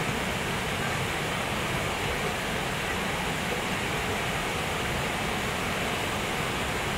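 Steady rushing of a mountain creek tumbling over boulders and small cascades, an even white-noise hiss with no breaks.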